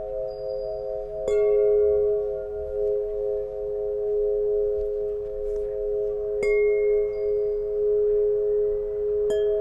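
Solfeggio tuning pipes ringing, several long tones sounding together. They are struck afresh three times: about a second in, about six and a half seconds in, and near the end. Each strike has a bright metallic attack that fades into the sustained ring.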